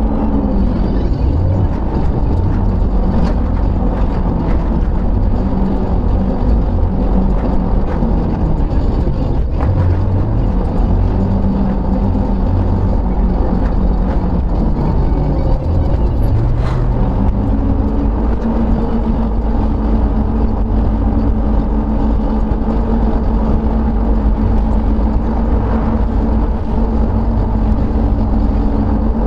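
Steady road noise inside a moving car: tyres on pavement and the engine's low drone, with a humming tone that drops out early and returns about halfway through.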